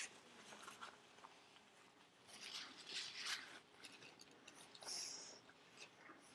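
Faint, scattered rustling and mouth noises of a person eating: chewing, and wiping his mouth with a paper napkin. The noises come in a few short clusters, the densest a little past halfway.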